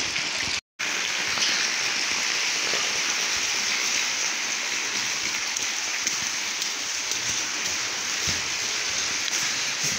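Steady rain falling, an even hiss with no let-up, except for a moment of silence about half a second in where the sound breaks off.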